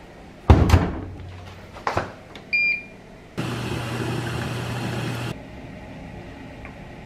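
Front-loading washing machine: its door shut with a thud, a click, and a short electronic beep from its controls, then about two seconds of the drum turning with a steady hum that starts and stops abruptly.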